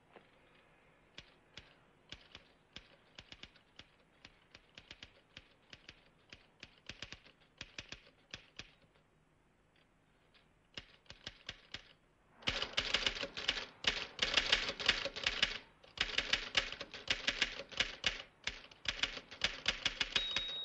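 Typewriter keys being struck: a faint, uneven run of keystrokes, a short pause, then louder, faster typing in bursts.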